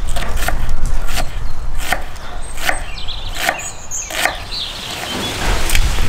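Kitchen knife chopping an onion on a wooden end-grain cutting board, a sharp knock roughly every 0.7 s. In the last second or so the knocks give way to a steady sizzle from potatoes frying in a cast-iron pan as the chopped onion is tipped in.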